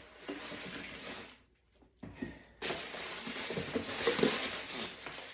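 Tissue paper rustling and crinkling as it is handled and unwrapped, stopping briefly about a second and a half in, then starting again.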